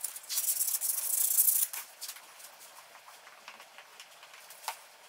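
Wooden pattern pieces being handled on a workbench: a rough rubbing, scraping noise for about a second and a half, then light wooden clicks and taps, with a sharper tap near the end.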